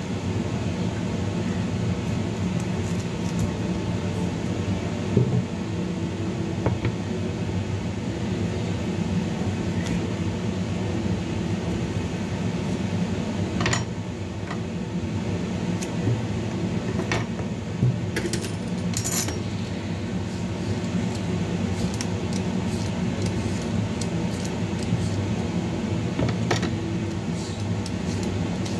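A steady low hum with scattered light clicks and taps, from a chayote being trimmed with a crinkle-cut knife and peeled with a hand peeler over a cutting board.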